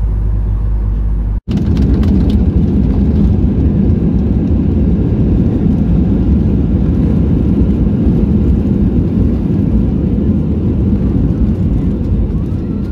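Airliner speeding along the runway, heard from inside the cabin: a loud, steady low roar and rumble that begins abruptly about a second and a half in, after a steadier, quieter cabin hum.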